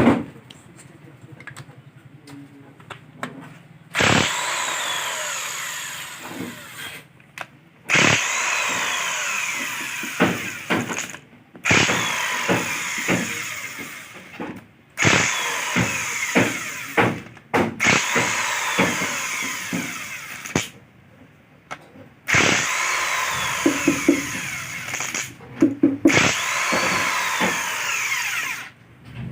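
Handheld electric power tool run in about seven bursts of two to three seconds each, whining down in pitch as each burst ends, with short metal knocks between the bursts.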